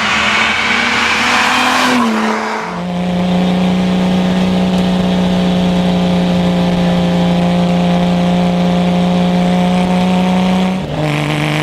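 1970 Lamborghini Miura S's V12 engine pulling hard, its pitch rising for about two seconds before the revs drop. It then runs at steady revs for about eight seconds, and the revs drop once more near the end.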